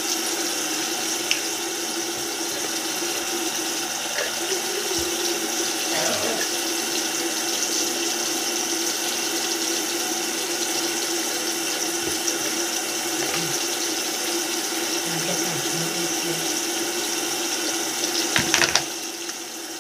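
Bathroom sink tap running steadily into the basin. A few sharp knocks come near the end, and the water sound briefly dips.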